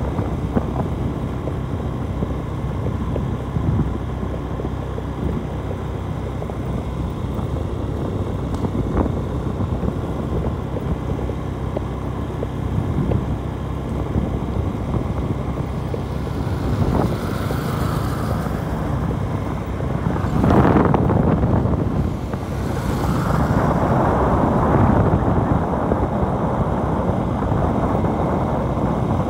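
Motorcycle running at a steady cruise, heard from the rider's seat with wind buffeting the microphone and a constant road hum. A louder rushing swell rises and fades about two-thirds of the way through, and a second one follows a few seconds later.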